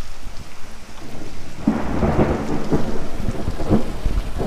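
Torrential downpour in a thunderstorm, with a roll of thunder swelling up about a second and a half in and rumbling on through the rest.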